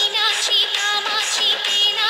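Music with a high singing voice wavering in vibrato, thin in sound with almost no bass.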